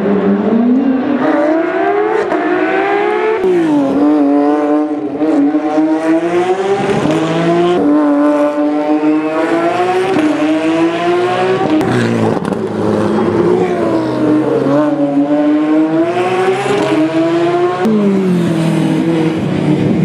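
Porsche 997 GT3 rally car's flat-six engine revving hard under load. The pitch climbs and then drops sharply about four times as it changes gear, with dips and rises as it brakes and accelerates through the corners.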